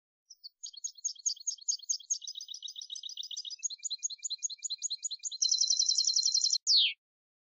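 Caged European goldfinch (chardonneret) singing: a long run of quick, high repeated notes, about five a second and growing faster. It ends in a fast buzzing trill and one short falling note.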